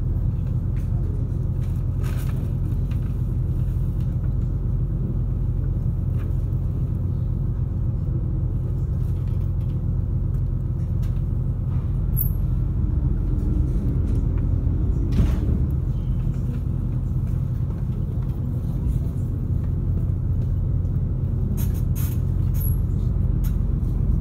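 Car ferry's engines heard from inside the passenger cabin: a steady low drone and hum, with a few light clicks and one sharper knock about fifteen seconds in.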